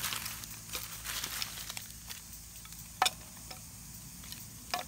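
Wood fire crackling under a stack of logs and split firewood: a run of light crackles with two sharper snaps, about three seconds in and near the end.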